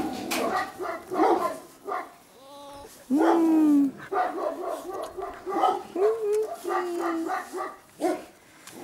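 A litter of seven-to-eight-week-old puppies yelping and whining together, with one longer, louder whine about three seconds in and short squeaky cries around six to seven seconds in.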